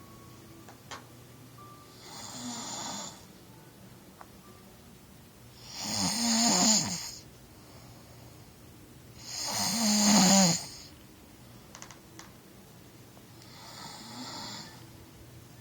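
A man snoring in sleep: four snores about four seconds apart, the middle two loud with a wavering, rattling tone, the first and last soft.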